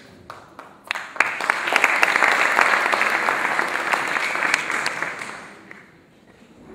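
Audience applauding: a few scattered claps, then the applause swells about a second in, holds for several seconds and dies away near the end.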